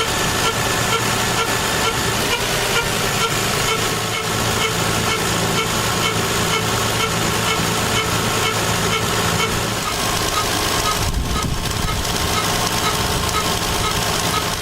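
Lexus RX300 engine running with a strange repeating tick at an even rhythm of about three a second over the steady engine noise; the owner cannot identify the fault behind it.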